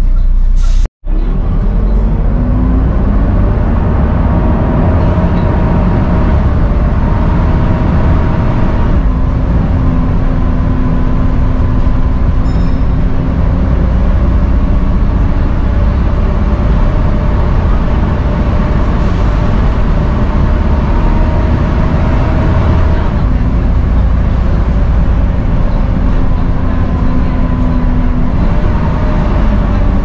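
Volvo B7TL double-decker bus under way, heard from the upper deck: its Volvo D7C six-cylinder diesel runs loudly with the whine known to enthusiasts as a 'hoover'. The steady whine shifts in pitch several times as the bus changes speed and gear, with a split-second gap in the sound about a second in.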